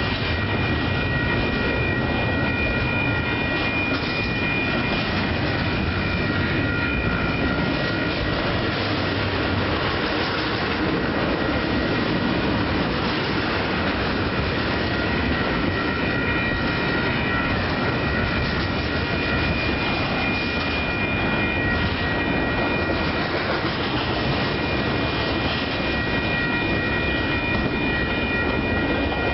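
Double-stack container well cars of a freight train rolling past close by: steady noise of steel wheels running on the rails. A few steady high ringing tones fade out partway through and come back near the end.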